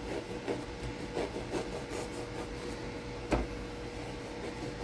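Serrated knife sawing through a soft bread roll: short rasping strokes about twice a second, with one sharper knock about two-thirds of the way through.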